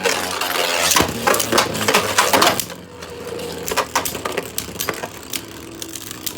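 Two Beyblade spinning tops clashing in a stadium: a rapid run of sharp clicking hits over the first three seconds, then a quieter spinning whir with a few scattered knocks.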